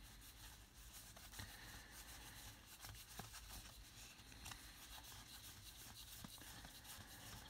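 Near silence with faint, scattered clicks and light rustling of trading cards and card packs being handled.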